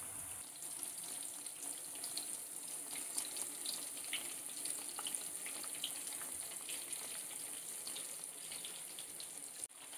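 Chicken pieces deep-frying in coconut oil over a low flame: a steady, soft sizzle with scattered small crackles and pops.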